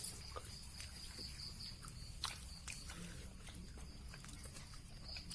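Faint crunching clicks of someone chewing fried crickets and grasshoppers, over a steady high-pitched pulsing chirr of insects in the background.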